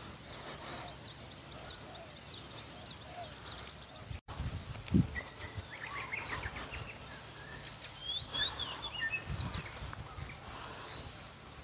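Several birds chirping and calling over faint open-air background noise, with a brief break about four seconds in.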